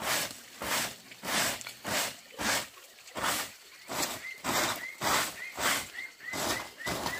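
Soft grass broom sweeping leaf and bamboo debris across a concrete floor, swishing in steady strokes about twice a second. Faint short high chirps repeat in the second half.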